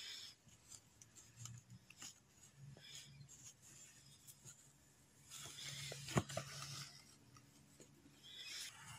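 Faint rustling of embroidery thread being drawn through cloth and fingertips rubbing the stitched fabric, in soft scratchy bursts, with a small click about six seconds in.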